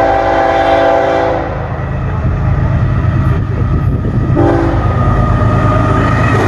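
Diesel freight locomotive's air horn sounding a long chord blast that stops about a second and a half in, then a second blast starting near the end. Under both runs the steady low rumble of the train rolling through.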